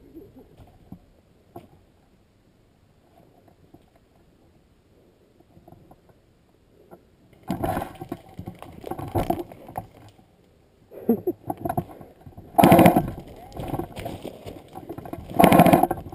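Rustling and scuffing picked up by a rifle-mounted camera as the player moves through forest undergrowth: quiet for the first several seconds, then several loud bursts of scraping and rubbing noise from a little past halfway in.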